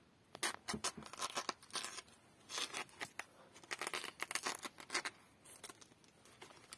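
Kitchen knife cutting around the rind of a small oval watermelon, a rapid irregular series of short crisp crackles and scrapes as the blade slices through rind and flesh. It goes in bursts for about five seconds, then mostly stops.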